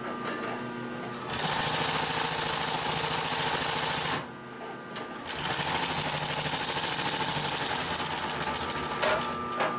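Consew 744R-30 walking-foot (triple-feed) industrial sewing machine stitching at speed through several layers of thick leather. It sews in two runs, stopping briefly about four seconds in before starting again.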